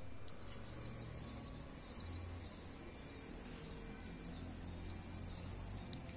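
Quiet rural outdoor ambience: a steady high-pitched insect drone with faint short chirps repeating about every half second, over a low background rumble.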